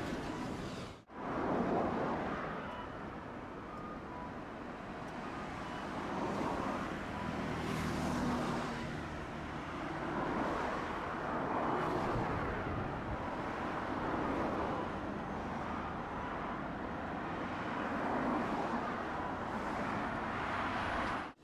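City street traffic, with vehicles passing in repeated swells and fades. It breaks off sharply for a moment about a second in.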